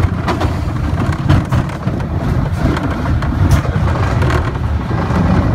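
Small mine-train roller coaster running along its track, heard from the front car: a loud, uneven low rumble with scattered rattling clicks.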